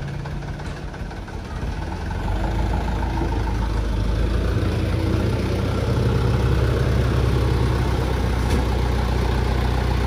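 Mitsubishi light dump truck's diesel engine running, throttled up about two seconds in as the truck pulls away and manoeuvres, then holding a steady low drone.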